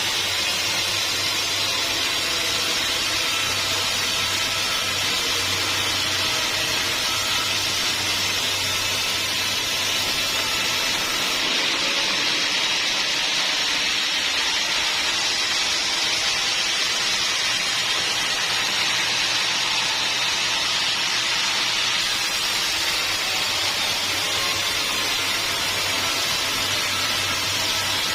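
Sawmill machinery running steadily, a sawing hiss over a low motor hum; the hum drops away for about ten seconds in the middle, then returns.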